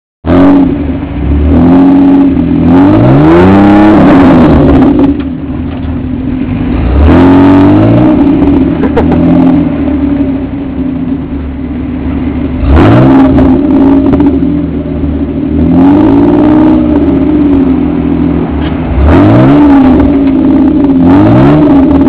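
Truck engine revving hard again and again, its pitch climbing and dropping back with each burst, as a high-centered pickup is worked free of a gravel mound.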